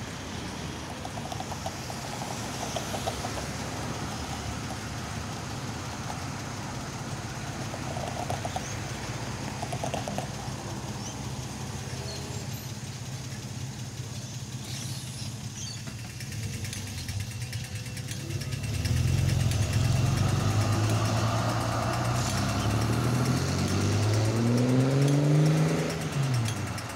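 Street traffic with a steady low engine hum. Past the midpoint it grows louder, and then a vehicle accelerates, its engine pitch rising in several steps before dropping away shortly before the end.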